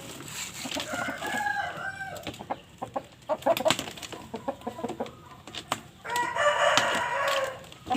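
Chickens calling: a drawn-out rooster-like call early on and another, fuller call near the end, with a string of short sharp clicks or clucks between them.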